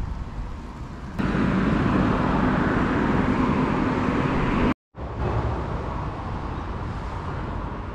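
Road traffic passing close by: a steady rush of tyre and engine noise that starts abruptly about a second in. It drops out for a moment just after halfway, then carries on a little quieter.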